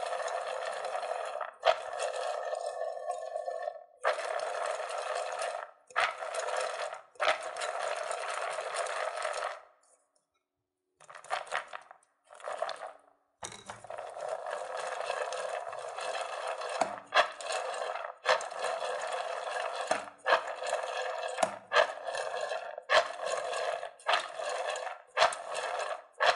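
Raw peanuts, wet and dusted with flour, being shaken hard in a metal pot to coat them in batter: a continuous rattling of nuts rolling and clicking against the metal, in long spells with short pauses about ten and thirteen seconds in.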